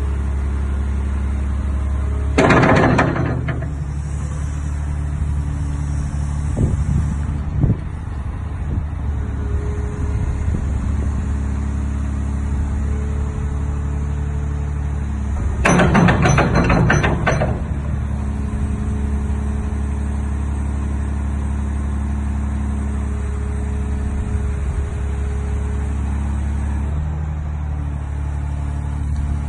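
Caterpillar 345D excavator's C13 diesel engine running steadily. Two louder bursts of noisy clatter break in, one about two seconds in and a longer one about midway.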